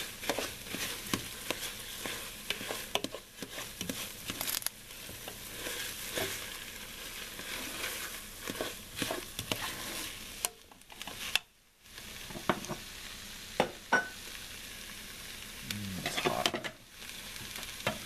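A spoon stirring thick, nearly dry cheeseburger rice in a pot, with many short scrapes and taps of the spoon against the pot over a steady sizzle of the mixture cooking down.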